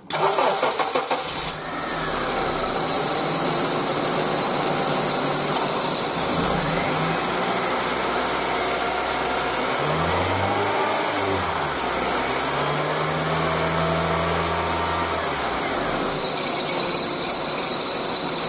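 Honda Accord engine running with its accessory drive belt squealing in a high, steady tone. The squeal drops away through the middle, while the engine note rises and falls as the throttle is raised, and comes back near the end. The belt is slipping because the automatic tensioner is not holding enough tension.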